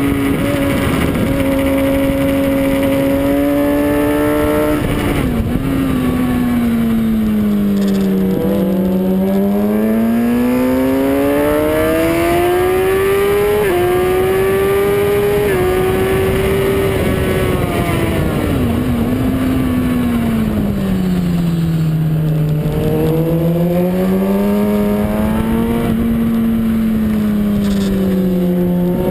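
Suzuki GSX-R sportbike's inline-four engine heard from on board at track speed, its revs repeatedly climbing and falling as it is ridden through corners, over steady wind rush.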